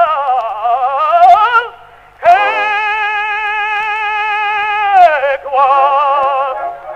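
An operatic tenor singing on an early gramophone recording. The voice runs downward, breaks off briefly, then holds one long note with a wide vibrato that slides down at its end, followed by shorter notes.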